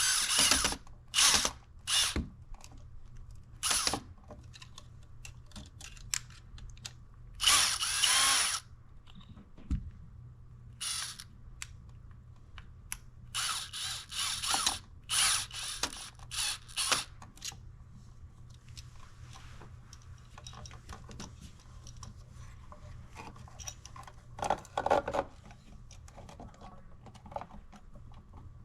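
Power drill/driver running in repeated short bursts, stopping and starting as it drives screws, with one longer run about eight seconds in, a cluster of bursts midway, and a last burst near the end.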